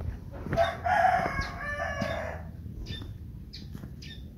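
A rooster crowing once: a long call that starts about half a second in and lasts about two seconds.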